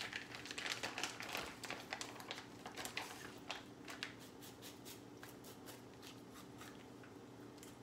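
Plastic wrap crinkling and a knife scraping over raw salmon skin as the fillets are checked for scales: a quick run of scratchy rustles that thins out after about four seconds, over a faint steady hum.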